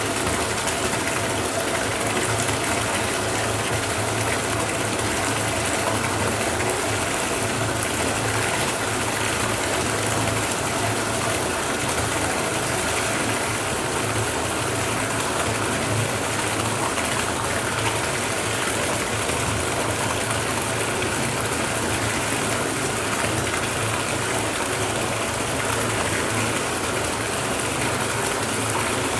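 Bathtub filling from the faucet: a steady gush of running water pouring into the tub, unchanging throughout.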